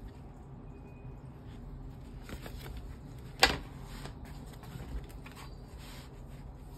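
Cloth bandoleer with nylon webbing straps being handled and laid flat on a wooden floor: rustling of the fabric and straps, with one sharp knock about halfway through and a lighter tick a little later.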